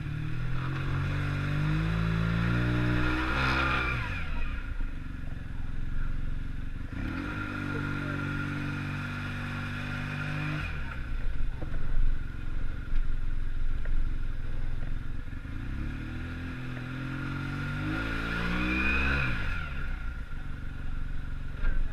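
Motorcycle engine running under load. The pitch climbs as it is revved up three times and falls away each time it eases off.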